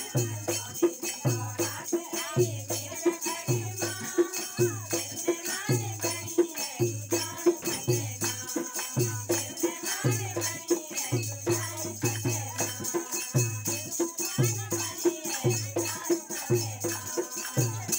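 Devotional kirtan: a group of women singing together, with hand-clapping, jingling percussion and a low drum beat about twice a second.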